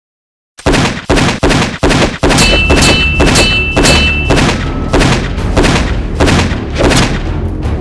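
Dubbed gunfire sound effects over music: a steady run of loud shots, about two and a half a second, starting half a second in.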